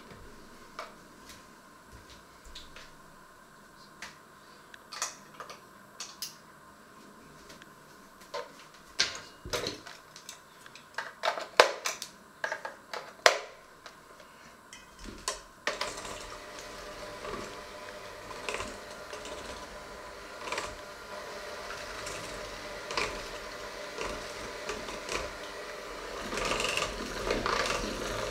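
Scattered clicks and knocks, then about halfway through an electric hand mixer switches on and runs steadily, its beaters whisking an egg mixture in a stainless steel bowl, louder near the end.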